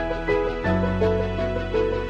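Background instrumental music: a melody of short notes over long held bass notes that change about every second and a half.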